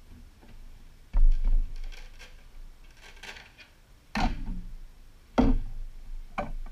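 Handling sounds of crafting work on a costume armor piece and Velcro: four sharp knocks and thuds, the first about a second in and the rest in the second half, with light rustling and scraping between them.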